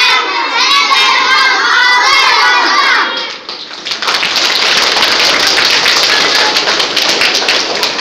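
A group of young children calling out loudly together for about three seconds, then, after a brief dip, applause with many hands clapping from about four seconds in.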